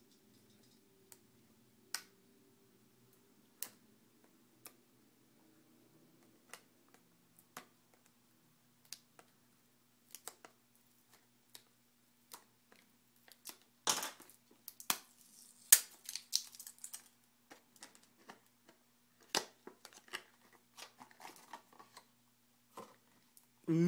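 Clear plastic shrink-wrap on a small cardboard box being picked at with a small pointed tool and then pulled off. Scattered light clicks and taps about once a second, with a stretch of crinkling plastic about halfway through.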